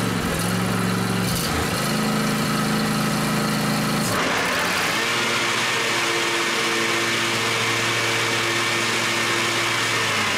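A John Deere riding lawn mower's engine running steadily just after starting. About four seconds in there is a clunk and the engine's note shifts, with a rushing sound added, as the mower blades are engaged for a test run.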